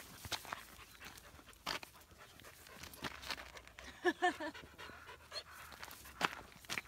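Akita dogs panting, with scattered sharp clicks and a short pitched vocal sound about four seconds in.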